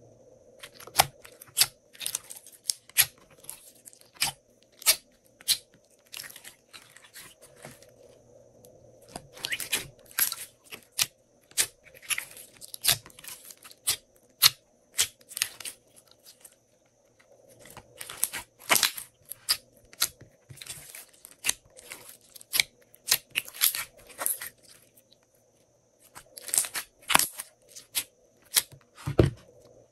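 Glossy slime being squeezed, pressed and stretched by hand in a glass dish, giving sharp sticky clicks and pops in quick clusters, with a few short pauses.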